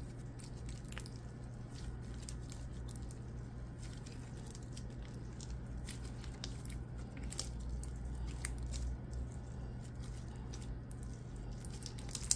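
Glossy clear-and-clay slime being stretched, folded and pressed by hand, with soft squishing and many scattered small clicks and pops of air bubbles in the slightly tacky slime.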